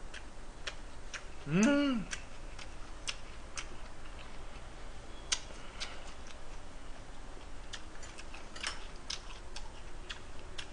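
Faint, irregular clicks and small pops over a low room hum, with a short hummed vocal note that rises and falls about one and a half seconds in.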